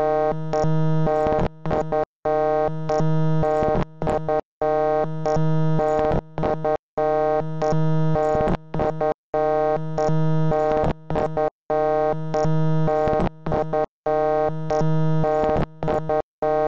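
Loud, buzzy synthesized electronic tone held on one pitch, repeating in a loop of about two and a half seconds with short drop-outs and quick stutters between the held notes.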